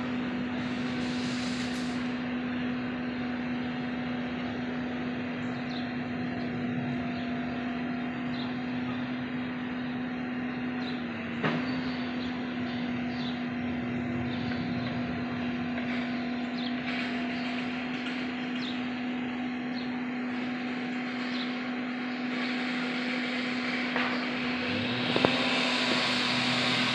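Steady outdoor background hum: one constant low tone under an even wash of noise, with a sharp knock about eleven seconds in and another near the end.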